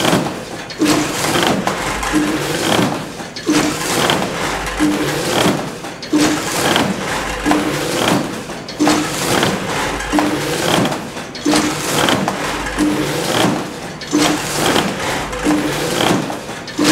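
Several church bells of a parish church pealing together. Their strikes overlap in a steady, repeating rhythm, with a deep bell and a higher bell each sounding about every second and a half.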